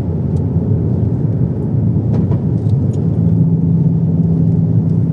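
Car cabin noise while driving: a steady low rumble of road and engine. A steady low engine hum comes in about three seconds in.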